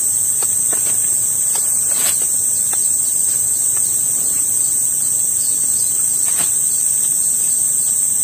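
Steady, high-pitched drone of a tropical insect chorus, with a few faint clicks and taps.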